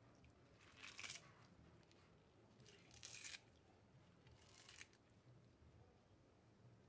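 Wet turmeric leaves being torn by hand: three short rips.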